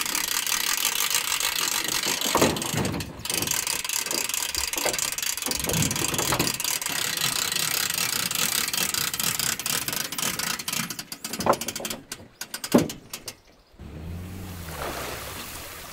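Boat trailer hand winch ratcheting steadily as the aluminium jon boat is cranked up onto the trailer, with two sharp knocks near the end.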